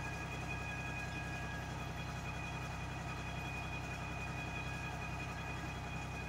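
US Jetting 4018 truck-mounted sewer jetter running steadily: an even engine hum with a steady high whine on top.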